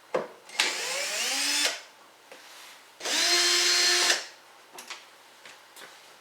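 Cordless drill/driver run twice, about a second each, backing out the bolts that hold the dishwasher's front panel; the first run rises in pitch as the motor spins up and the second holds steady. Small clicks and taps of handling follow.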